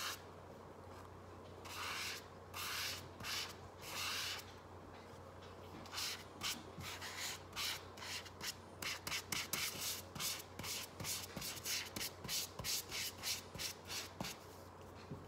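Paintbrush rubbing thick fluffy paint (shaving cream, glue and paint) across paper, a soft scratchy swish with each stroke. A few slow strokes come first, then quicker back-and-forth strokes about twice a second from about six seconds in.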